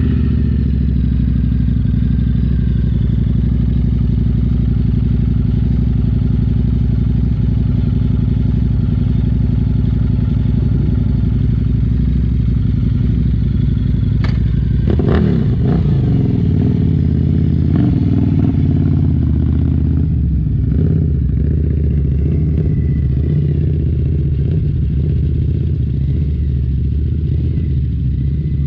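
Harley-Davidson V-Rod motorcycle engine idling steadily. About halfway through there is a sharp clunk, and then the engine note rises and falls for a few seconds before settling into a steady run again.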